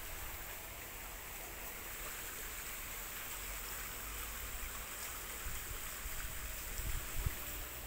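Steady hiss of water running in a shallow stream, with a few low thumps near the end.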